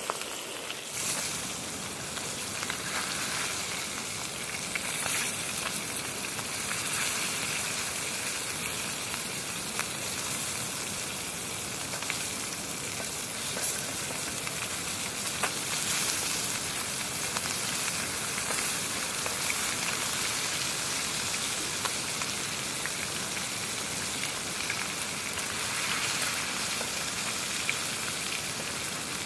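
Whole fish frying in hot oil in a pan: a steady sizzle with scattered small pops.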